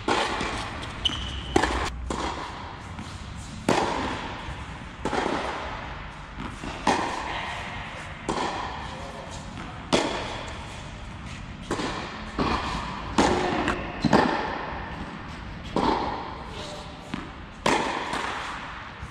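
Tennis racket strokes and ball bounces in a rally, a sharp hit every second or two, each ringing on in the echo of a large indoor tennis hall.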